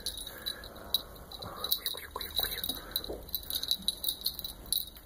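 Small jingle bell on a dangling cat toy jingling in short, irregular shakes as a kitten swats at it with her paws.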